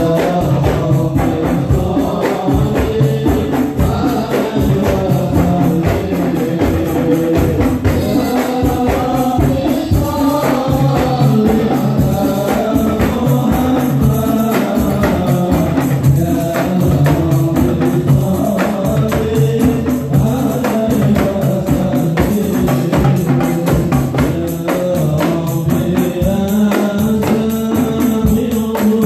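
Live marawis music: a group of men singing Islamic devotional songs together over fast frame drums, hand drums and a cymbal, amplified through a Yamaha DBR15 powered speaker and a Soundbest mixer.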